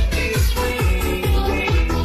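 Electronic dance music with a steady, fast kick-drum beat under sustained synth layers.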